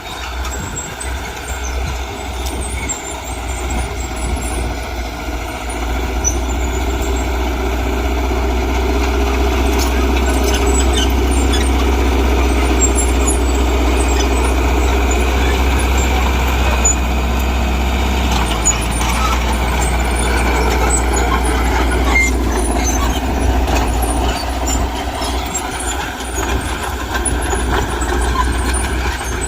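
Heavy diesel earthmoving machinery running under load, with a high squeal over the engine. It grows louder about six seconds in and eases off in the last few seconds.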